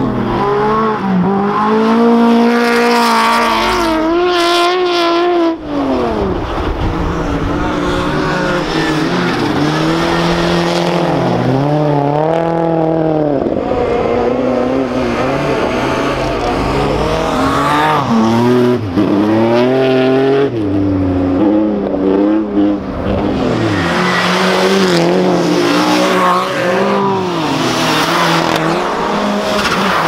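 Rally car engines on a snow-and-ice circuit, revved hard through the corners, the pitch climbing and dropping over and over with throttle lifts and gear changes as the cars pass.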